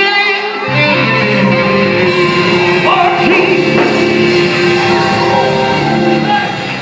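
Live gospel band music: sustained chords with a bass line coming in just under a second in, and a voice singing over it.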